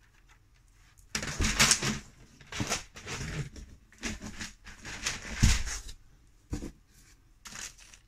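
Rustling and scraping as a stack of plastic beehive foundation sheets is handled and moved out of a cardboard box, in several irregular bursts. There is a dull thump about five and a half seconds in and a short knock a second later.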